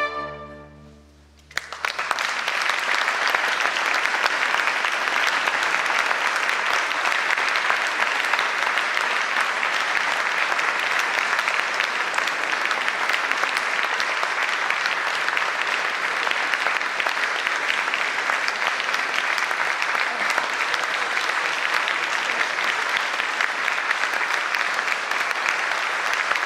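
The last chord of oboe and strings dies away, and about a second and a half in the audience breaks into steady applause.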